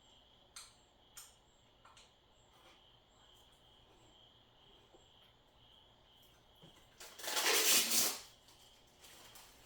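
Handling noise: a few light clicks, then a loud rustle lasting about a second around seven seconds in, and a softer one just after. A faint, evenly pulsing high chirp, like crickets, continues underneath.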